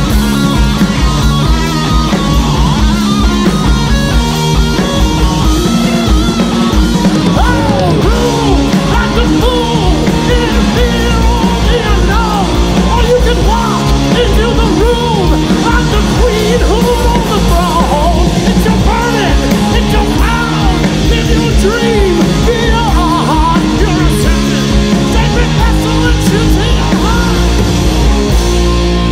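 Rock band playing loud, with distorted electric guitar, bass and drums; a melody line of bending, sliding notes runs over it.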